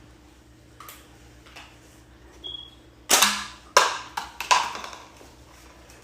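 Four sharp bangs in quick succession about three seconds in, the first the loudest, each dying away quickly.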